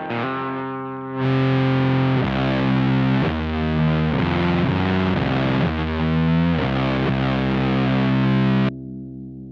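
Heavily fuzzed electric guitar through a one-knob fuzz pedal and a '69 Laney Supergroup amp, playing a slow riff of long sustained notes that gets louder about a second in. Near the end the playing is cut off sharply, leaving a fading amp hum.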